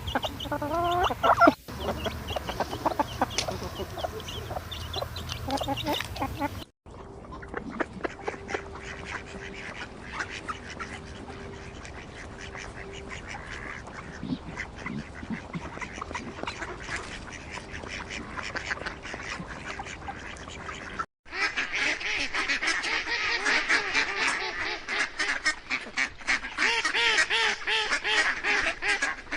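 A string of poultry sound-effect clips cut together. Chickens cluck for the first seven seconds or so, then, after abrupt cuts, a flock of ducks quacks and geese honk, with many calls overlapping.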